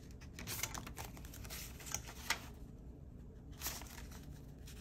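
Paper banknotes rustling and crinkling as they are pulled from a binder pocket and counted by hand, with several short, crisp flicks of the bills.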